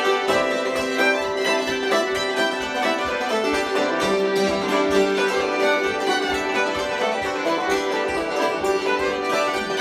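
String band playing a lively fiddle tune: two hammered dulcimers, a fiddle and a banjo together, at a steady driving rhythm.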